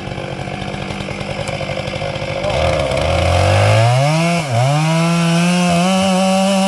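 Two-stroke chainsaw running rough and low, then revved up steeply to full speed about two and a half seconds in. It dips sharply once and recovers, then is held at high, steady revs.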